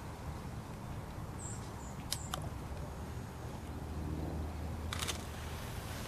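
Handheld camcorder handling noise: a few sharp clicks, two about two seconds in and a short cluster near five seconds, over a steady low outdoor rumble.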